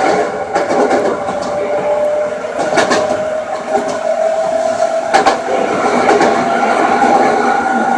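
Toei 5300 series subway train running, its traction motor whine rising slowly in pitch as the train gathers speed, with rail noise underneath and a few sharp clacks, the loudest about three and five seconds in.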